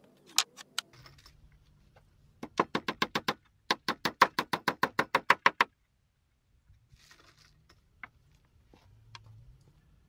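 Hammer driving nails into wooden floorboards: two runs of quick, evenly spaced strikes, about six a second, with a slight ring to each blow, then a few lighter knocks.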